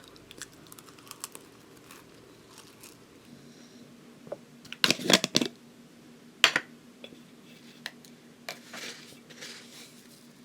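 Tableware being handled during a meal: scattered light clicks, a cluster of loud knocks about five seconds in, a single sharp knock a second and a half later, and some rustling near the end.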